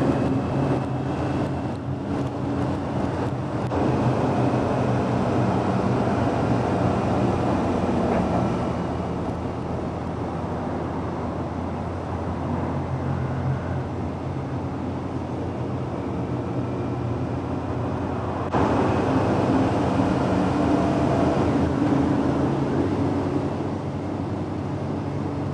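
Motorcycle engine running at road speed, with wind and road noise on the bike-mounted camera. The sound changes abruptly about two-thirds of the way through as the footage switches to another bike's camera.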